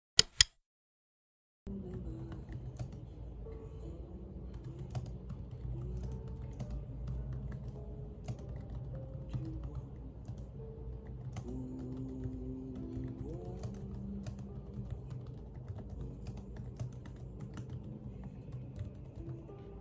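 Two sharp key clicks, then after a short silence steady typing on a laptop keyboard, irregular light key clicks, over soft background music.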